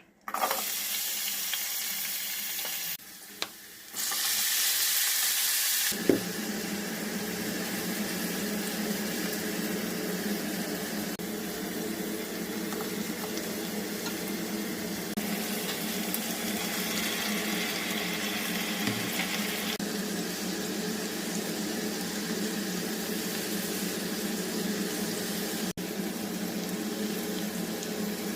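Water running from a kitchen tap, briefly cut off about three seconds in and running harder for a couple of seconds after. From about six seconds a different steady hiss sets in.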